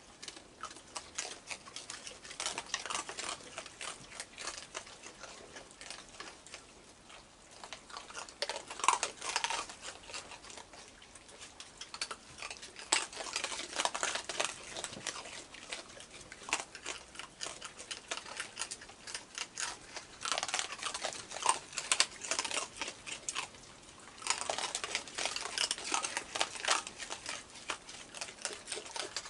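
Several raccoons crunching dry food pellets: a dense stream of crisp crunches and small clicks, thickening into busier spells every few seconds.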